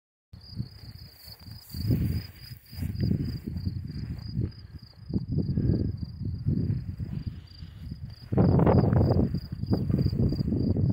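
Wind buffeting the microphone in gusts, louder from about eight seconds in, over the steady, high-pitched chirring of insects in the grass.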